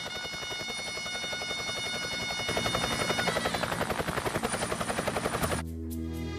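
Helicopter rotor turning with a fast, even chop and a high turbine whine. The chop grows louder about two and a half seconds in. Near the end it cuts off suddenly and gives way to soft sustained music.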